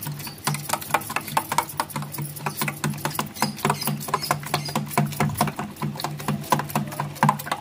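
Metal spoon beating eggs with chopped onion, coriander and green chillies in a stainless steel bowl: rapid, rhythmic clinking of spoon against bowl, several strokes a second.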